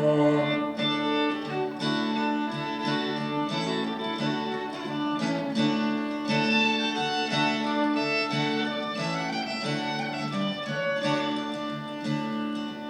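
Instrumental break of fiddle and strummed acoustic guitar, the fiddle carrying the melody over the guitar's chords.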